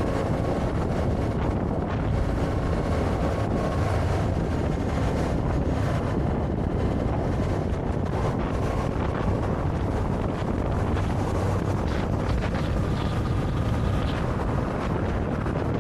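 Steady wind rushing over the microphone of a motorcycle-mounted camera while riding, over the motorcycle engine's low drone.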